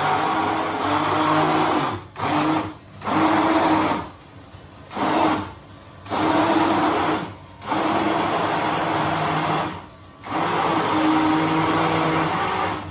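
Electric hand (immersion) blender running in a steel tumbler, blending mango and milk into a mango shake. It is switched on and off in seven bursts, from about half a second to two and a half seconds long, with short pauses between them.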